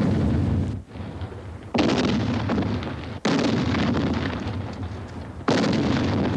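Four heavy explosions in a row, each starting suddenly, loudest in the low rumble, and fading away slowly before the next one hits.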